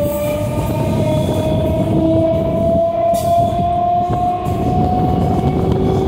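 Electric multiple unit (EMU) suburban train running, its motor whine rising slowly and steadily in pitch as the train picks up speed, over a loud rolling rumble.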